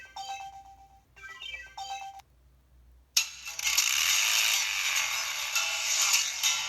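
EV-W250 mobile phone playing its built-in alert tones through its speaker: a short electronic melody sounds twice, then about three seconds in a much louder, denser tone starts abruptly and keeps going.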